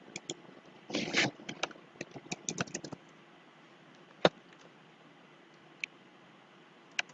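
Typing on a computer keyboard: a quick run of keystrokes over the first three seconds, then three single clicks spaced out after it.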